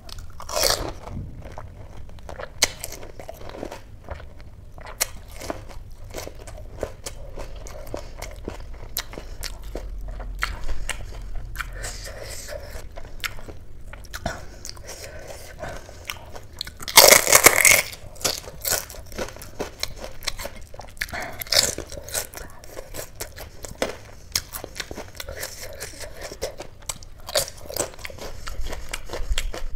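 Close-miked biting, crunching and chewing of spicy pani puri, the crisp puri shells cracking between the teeth. The crunches come irregularly, the loudest a short cluster about 17 seconds in.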